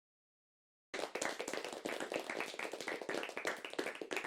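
A fast, dense run of many overlapping sharp claps, starting abruptly about a second in out of silence and beginning to thin out near the end.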